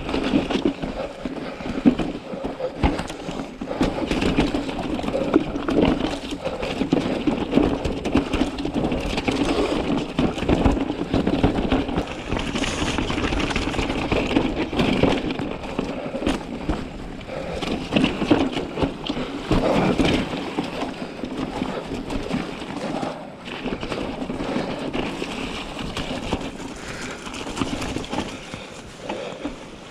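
Mountain bike riding down rocky singletrack: tyres rolling and crunching over stones, with frequent sharp knocks and rattles from the bike as it hits rocks.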